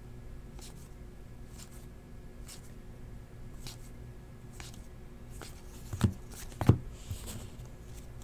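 Football trading cards being flipped through by hand, one card slid off the stack about once a second with a faint click. Two louder thumps come about six seconds in.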